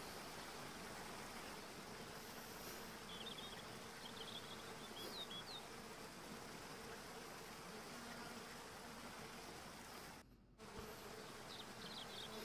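Faint steady background hum and hiss, with a few faint high chirps around the middle and again near the end, cutting out completely for a moment about ten seconds in.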